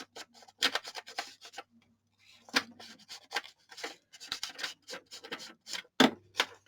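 Sheets of paper being handled and rustled for collage, a string of short, irregular crisp crackles.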